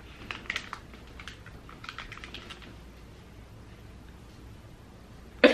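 Keyboard typing sound effect: a run of light key clicks over faint room hum, dying away about two and a half seconds in.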